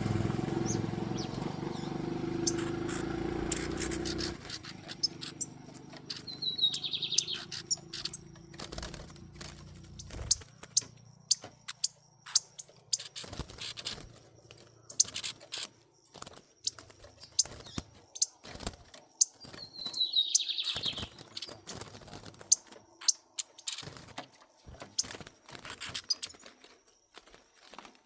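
Small songbirds chirping and singing in quick, sharp call notes, with a short falling buzzy phrase twice. A low rumbling noise covers the first few seconds.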